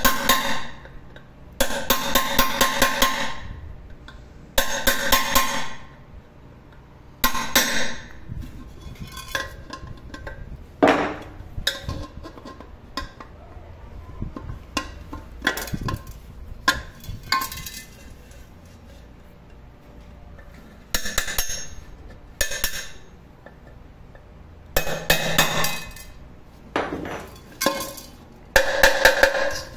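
Metal tool driven against stubborn old rivets in an aluminium pressure cooker to knock them out: bursts of rapid metallic blows with the pot body ringing, about eight bursts with quieter clinks and scrapes between.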